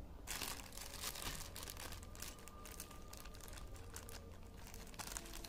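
Faint, irregular crinkling of a clear plastic packaging bag as hands handle the pipe wrench sealed inside it.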